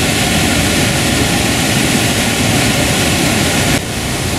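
Fast whitewater stream rushing through a stone channel and over the lip of a large waterfall: a loud, steady roar of water. Near the end it becomes a little quieter.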